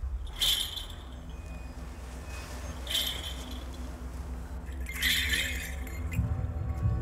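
Trailer sound design: a low steady drone under three sharp, glassy clinking hits spaced about two and a half seconds apart.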